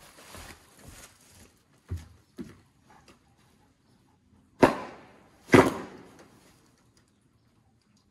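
Footsteps on a wooden deck, then two loud, sharp bangs about a second apart, each ringing out briefly.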